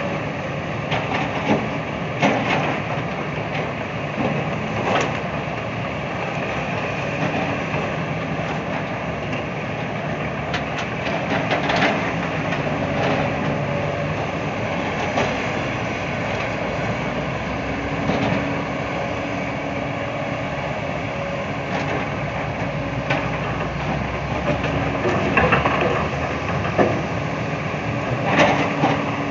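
Diesel engine of a log-grapple excavator running steadily under load, with scattered wooden knocks and clunks as the grapple handles pulpwood logs.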